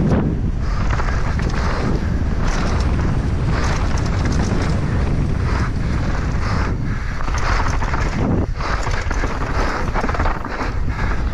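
Wind buffeting a helmet-mounted action camera's microphone over a constant low rumble, with irregular clatter and a few brief lulls: a downhill mountain bike running fast over rough ground.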